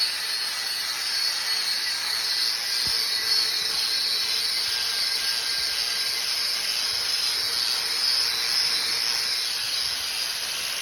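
An electric power tool, run off the truck's inverter, working continuously to clean up the new steel step: a steady, high-pitched rushing noise with a faint motor whine under it.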